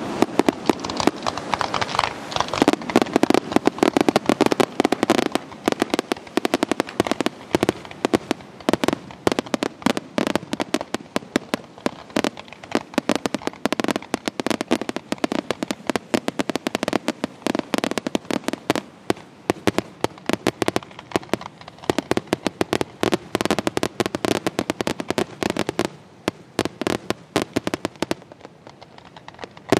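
Fireworks display: aerial shells bursting in a rapid, nearly continuous barrage of bangs and crackling, easing off briefly near the end.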